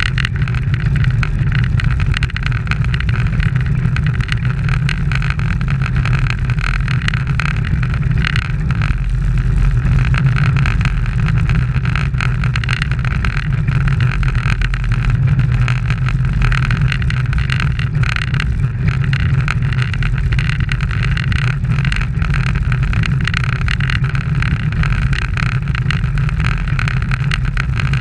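Steady wind rush and road rumble picked up by a bike-mounted action camera riding at speed in a pack of road bicycles.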